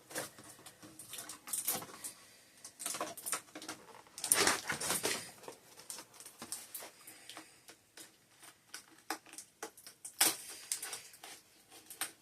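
Doll box packaging being handled and opened: irregular rustling of plastic and cardboard with small clicks and taps, including a longer rustle near the middle and a sharp one near the end.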